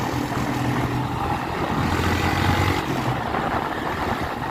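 Single-cylinder Honda CG Start motorcycle with an aftermarket exhaust, running on the overrun down a hill in fourth gear, its exhaust crackling as it engine-brakes. Wind noise on the microphone.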